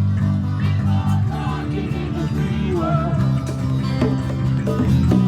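Live acoustic band music: strummed acoustic guitar chords with a wavering lead melody on top, and no singing.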